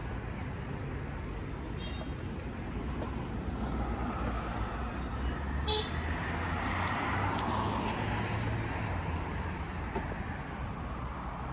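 Street traffic: a steady low rumble of road noise, with a vehicle passing that swells and fades around the middle. A short horn beep sounds about six seconds in.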